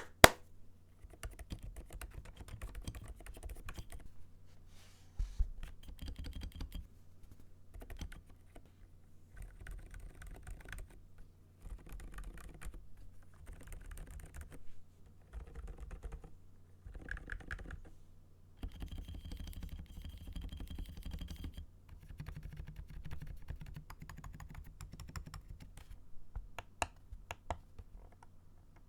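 Mechanical keyboard with Outemu Silent Peach v3 silent switches being typed on in runs of quick keystrokes with short pauses between them. The keystrokes are dampened and quiet.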